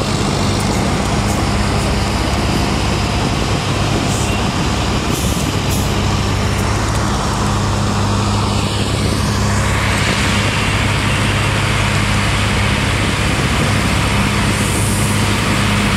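Diesel engines of railroad tie-replacement machines running with a steady low hum. A harsher hiss joins the engine noise from about ten seconds in.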